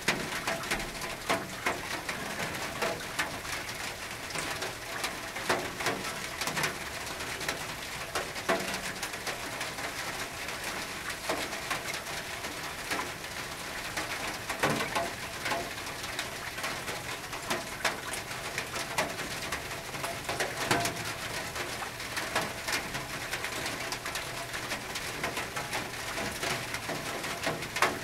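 Rain on a tin roof: a steady hiss of rain with irregular, sharp drop strikes on the metal.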